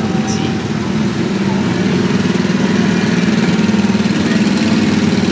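Small petrol engine of a drivable ride car running steadily, with a fast even putter that gets slightly louder a couple of seconds in.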